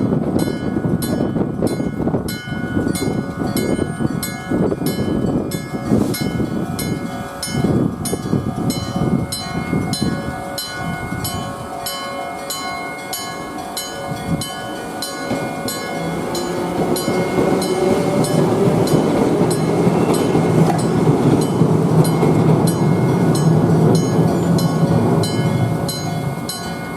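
Railway level-crossing warning sounding: an old electric striking bell and a newer electronic crossing alarm ring together in a steady rhythm of a few strikes a second. A train passes with wheel clatter in the first half, and a low steady hum builds in the second half before easing off near the end.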